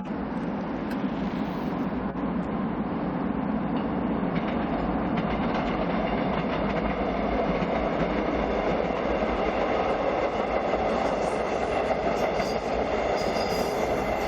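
Seoul Subway Line 2 train running along the track: a steady rumble of wheels on rails, with faint high-pitched tones coming in near the end.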